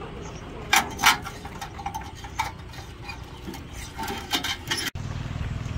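Dry straw crackling and popping as it catches fire in a metal stove's firebox, with two sharp cracks about a second in and a cluster of pops near the end. A steady low hum takes over abruptly near the end.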